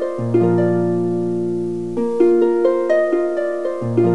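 Background music: a gentle melody of plucked notes that ring and fade, over a low held note, with the same short phrase repeating about every two seconds.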